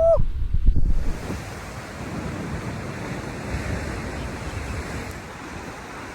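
Ocean surf washing on the shore as a steady rush, with wind buffeting the microphone, heaviest in about the first second.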